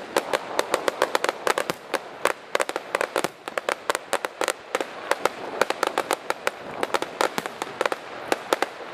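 Fireworks crackling: a dense, irregular run of sharp cracks and pops, many a second, from bursting aerial shells and their glittering stars.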